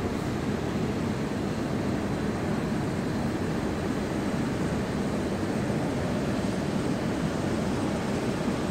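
River cruise ship's engines running as it passes, a steady low drone with no change in level.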